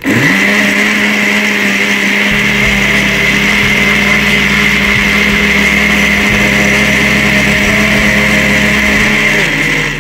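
Electric jug blender running, blending a jar of chopped fruit into juice. The motor spins up at the start, holds a steady high whine, and winds down shortly before the end.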